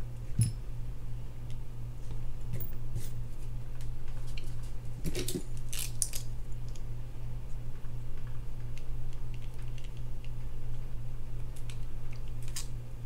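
Scattered light clicks and clinks as small metal fishing-reel parts and a utility knife are handled, a few at a time with gaps between, over a steady low hum.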